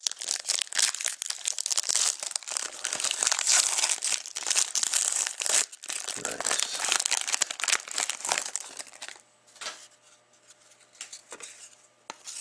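Foil wrapper of a Panini Dominion hockey card pack being torn open and crinkled by hand: a dense crackling that thins to a few light rustles about nine seconds in.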